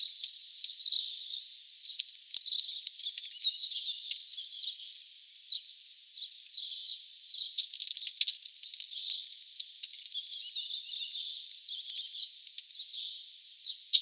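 Small birds chirping in short, high calls, mixed with many sharp clicks and ticks.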